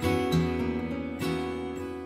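Intro music of an acoustic guitar strumming chords, with strums at the start and again about a second in.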